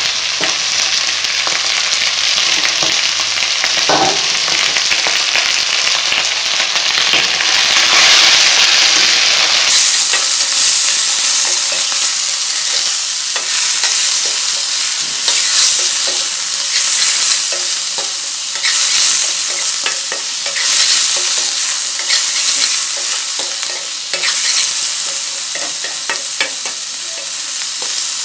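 Chicken pieces with onion and green chillies sizzling in hot oil in a metal kadai, stirred with a spatula that scrapes and knocks against the pan again and again. The sizzle grows brighter about ten seconds in.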